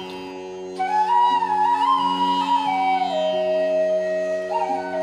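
Background music: a flute melody gliding between held notes over a steady drone, in an Indian classical style. The melody pauses briefly near the start, then a new phrase begins.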